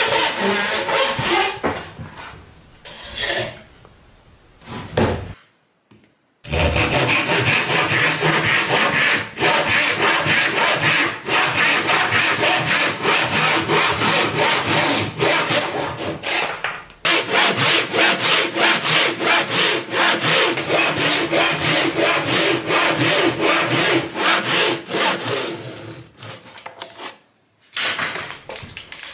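Japanese pull saw cutting across a bundle of thin wooden kumiko strips in quick, even strokes, the teeth rasping through the wood. The sawing stops briefly about six seconds in and again near the end.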